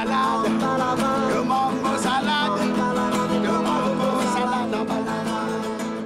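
Background music, beginning to fade out near the end.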